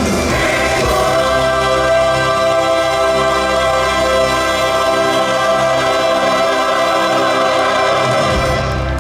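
Musical-theatre ensemble singing with orchestra, holding a long sustained chord that cuts off near the end, as a number closes.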